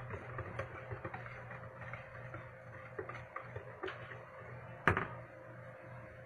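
Faint scattered clicks and taps of a utensil against a bowl as food colouring is mixed into puto batter, with one sharper click about five seconds in, over a steady low hum.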